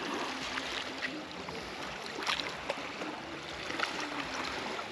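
Gentle water lapping at a beach shore, with a few light splashes.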